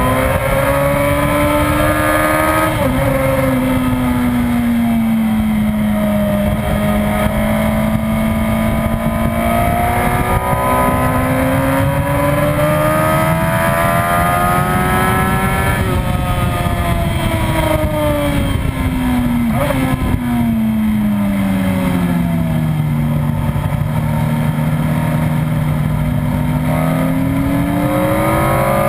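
2004 Yamaha YZF-R1's inline-four engine at high revs, heard from on board the bike on track. Its pitch rises and falls with throttle and gear changes, climbing until about halfway through, then falling for several seconds as the bike slows, and rising again near the end.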